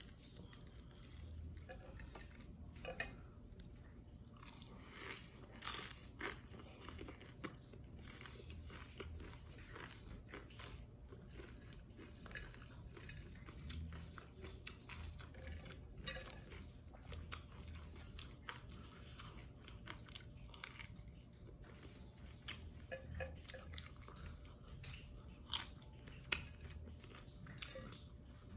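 Close crunching and chewing of deep-fried taro-and-shrimp fritters eaten in lettuce wraps, the crisp batter crackling with each bite. A few sharper crunches stand out, once early and twice near the end.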